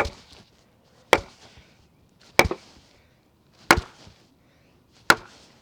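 Tasmanian pattern axe striking a short, knotty round of red oak five times in steady succession, about one blow every second and a quarter. Each blow is a sharp crack with a brief ring after it.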